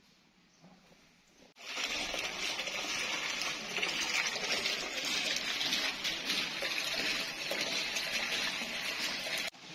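A small bubbler fountain splashing steadily into a shallow pool. The sound starts suddenly about one and a half seconds in, and breaks off for a moment near the end before carrying on a little quieter.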